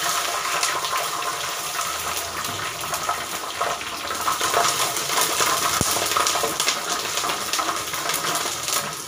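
Garlic, curry leaves and mustard seeds sizzling in hot sesame oil in a clay pot: a steady sizzle full of fine crackles.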